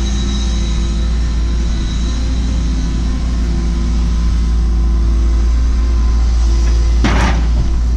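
Cat 314E excavator's diesel engine running steadily under load with a deep drone. About seven seconds in comes a short, loud burst of rattling noise from the machine at work.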